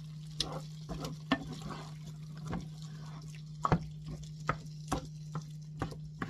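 Wooden spoon stirring and scraping a vegetable scramble in a frying pan, with about a dozen irregular sharp knocks of the spoon against the pan, over a steady low hum.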